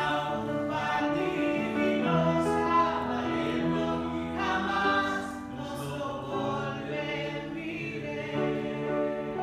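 Several voices singing together in harmony, holding notes that shift about every second, in an operatic style.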